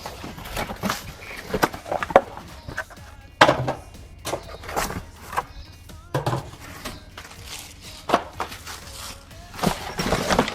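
Plastic hose-reel parts and cardboard packaging being handled and set down, giving irregular knocks and clatters.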